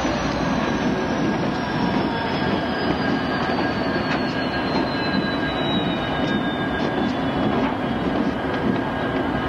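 Union Pacific diesel-electric locomotives rolling slowly past, engines running with a steady rumble. A high whine falls slowly in pitch throughout.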